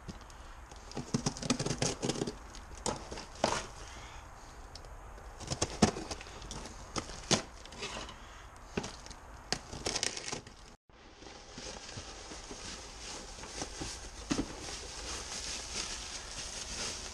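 A parcel being torn open by hand: paper and cardboard packaging tearing and crackling in irregular snaps, then plastic bubble wrap crinkling as it is handled.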